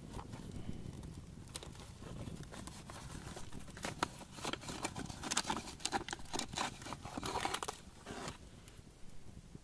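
Small wood fire crackling and popping, with a dense run of crinkling and rustling from about four to eight seconds in as an acorn bar is handled in the hands.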